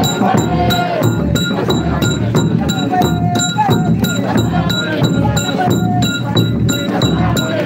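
Hymn singing over a steady percussion beat with a low bass underneath.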